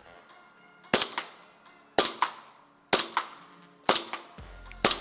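Glock 17 Gen 4 green-gas blowback airsoft pistol firing five shots, about one a second, each a sharp crack with a quick second click just after.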